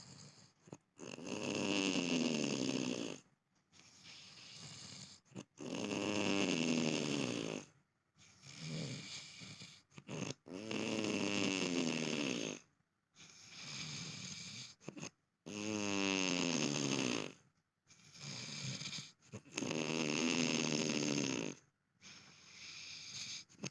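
A sleeper snoring in a steady cycle: about five loud, rattling snores roughly four and a half seconds apart, each falling in pitch, with a quieter breath between each pair.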